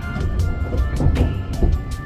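Background music with a steady beat and sustained held notes over a heavy low end.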